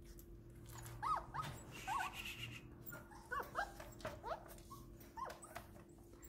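A small puppy whimpering: short, high whines that rise and fall in pitch, coming in a few quick clusters, with faint clicks in between.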